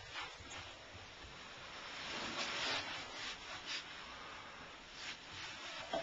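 Scraping and rubbing sounds: a longer rasp about two seconds in, then a few short scrapes.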